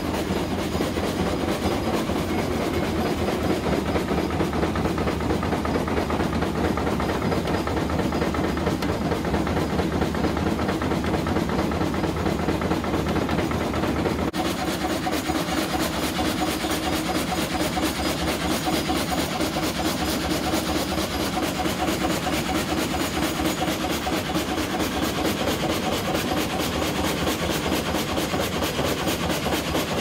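Bolinders vertical frame saw running and sawing through a log, its blade frame stroking up and down with a steady, fast, rhythmic clatter.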